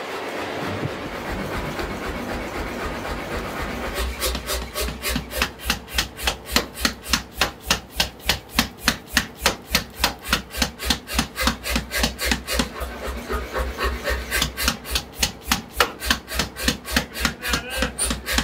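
Mechanical power hammer striking a red-hot steel bar over and over, about three blows a second, starting about four seconds in and easing briefly partway through. Before the blows, a steady rushing from the coal forge.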